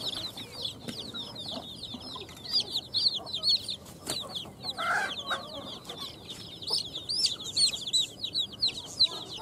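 Chicken chicks peeping continuously: a rapid stream of short, high, arched chirps from several chicks at once.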